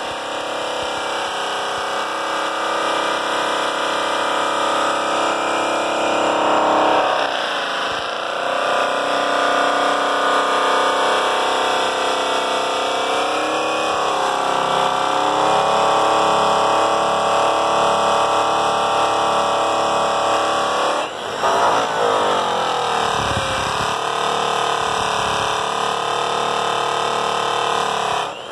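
Makita electric buffer spinning a buffing wheel against a polished aluminium truck wheel during a first-cut polish: a steady motor whine mixed with the buff rubbing on the metal. The pitch sags and picks back up under load about eight seconds in, and again just after twenty seconds.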